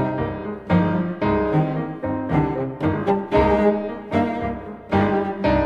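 Instrumental music with low, cello-like string tones, each note or chord starting sharply and fading, about two a second.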